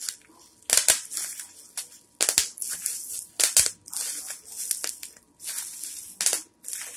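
Bubble wrap squeezed by hand, its bubbles popping with sharp snaps, several in quick pairs, amid crinkling of the plastic.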